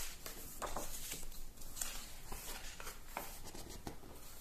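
Pages of a large hardcover comic book being turned one after another by hand: several faint, short paper flicks and rustles.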